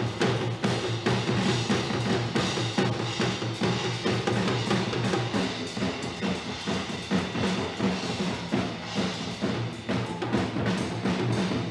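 Drum kit played in a fast, irregular stream of strokes on drums and cymbals, without a pause.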